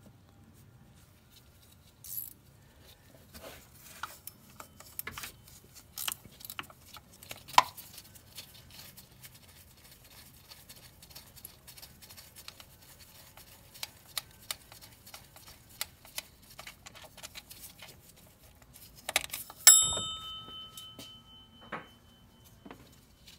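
Ratcheting wrench backing out water pump bolts on a Mazda/Ford 3.0L V6: scattered clicks and light metal taps. Near the end, a loud metal clink that rings briefly.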